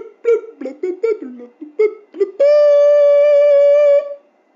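A high-pitched voice making short, quick syllables, then holding one long steady note for about a second and a half before stopping near the end.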